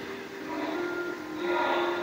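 Soundtrack of a video clip played over the hall's loudspeakers: a steady hum and noise with a few held tones.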